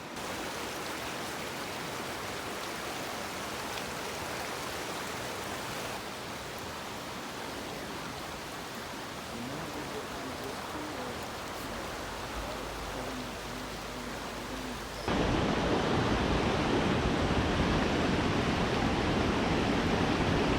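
Fast-flowing creek water rushing with a steady hiss. It changes abruptly twice and is much louder for the last few seconds.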